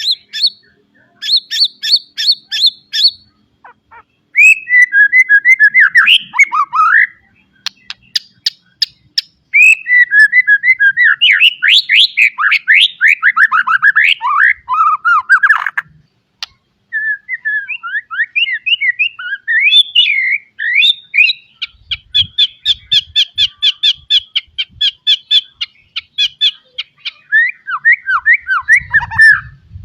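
White-rumped shama singing a loud, varied song of whistled glides, rapid runs of repeated sharp notes and long warbled phrases, full of mimicked calls, in bursts separated by short pauses.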